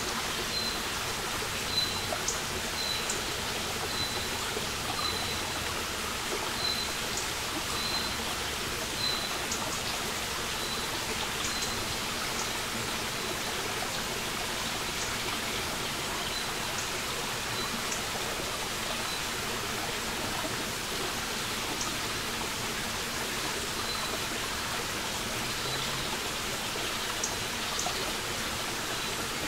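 Small forest brook running and trickling over rocks, a steady watery rush with scattered small drips and splashes. A bird repeats a short high note about once a second through the first third, then more faintly and sparsely.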